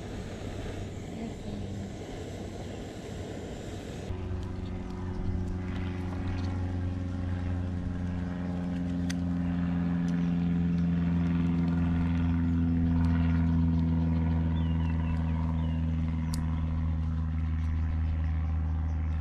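An engine running steadily at a low idle, a low hum that sets in suddenly about four seconds in and cuts off sharply at the end.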